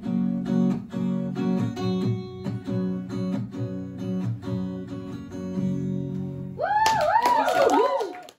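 Acoustic guitar strumming steady chords as a song closes. About six and a half seconds in, louder whoops and cheers with clapping break in, and then the sound cuts off abruptly.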